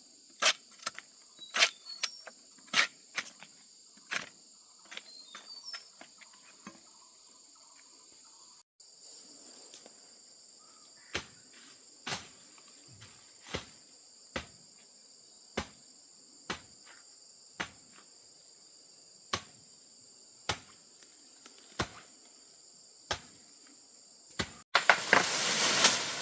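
A steady, high-pitched insect chorus, with a series of sharp knocks over it: quick and irregular in the first few seconds, then spaced about one a second. Near the end a louder rush of noise comes in abruptly.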